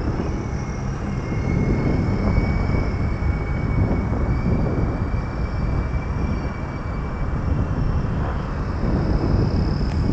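Radio-controlled model helicopter lifting off and flying, its motor and rotor giving a steady high whine that drifts slightly in pitch.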